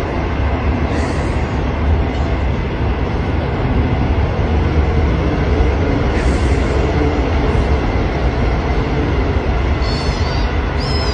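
A steady loud rumble throughout, with a cat meowing high and short twice near the end.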